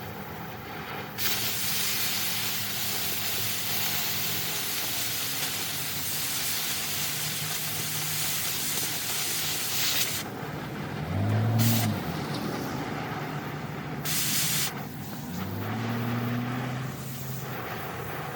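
Oxy-acetylene cutting torch hissing steadily, cutting off about ten seconds in and then starting again briefly. Two short low hums partway through.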